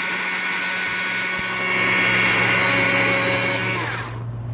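Chainsaw running at high revs while carving wood, loudest in the middle, then throttled back to idle about four seconds in, its pitch falling to a low steady hum.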